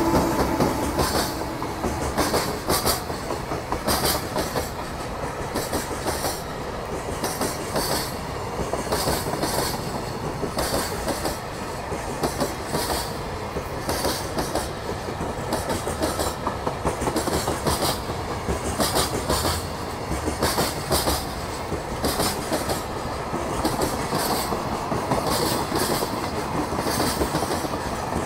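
Container flat wagons of a freight train rolling past without stopping. Their wheels click over the rail joints in a steady, repeating clickety-clack over a continuous rumble.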